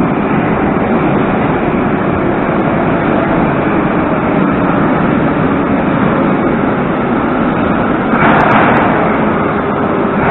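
Moscow Metro train approaching along the platform track, a steady loud rumble. A brief louder rush of noise comes about eight seconds in.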